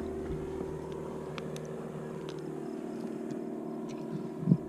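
Steady drone of a distant motor, an even hum holding several steady pitches, with a few faint ticks and a short low thump near the end.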